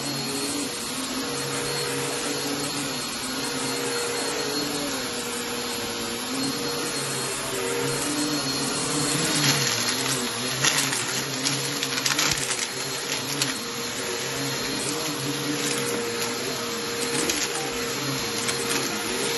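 Bissell Helix vacuum cleaner running over a shag rug: a steady motor hum and suction rush whose pitch wavers slightly as it is pushed back and forth. Midway come bursts of crackling crunch as grit and debris are sucked out of the pile.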